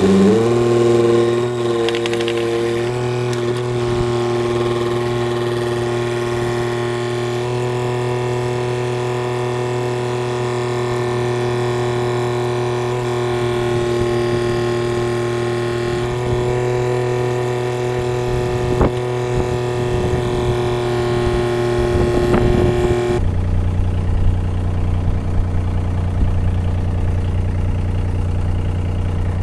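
Diesel engine of a Takeuchi TB125 mini excavator running at a steady speed, heard close up. The sound comes in abruptly at the start, and about two-thirds of the way through the note drops to a lower, deeper hum.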